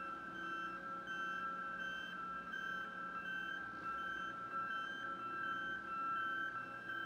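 Motion warning alarm of a Shuttlelift SL50II 50-ton mobile gantry crane sounding as it travels: a steady high two-note tone with a beep pulsing about twice a second.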